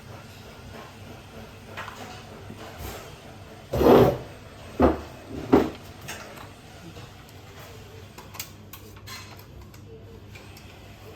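Vending machine tray being pulled and handled: a clunk about four seconds in, then two sharper knocks a little under a second apart.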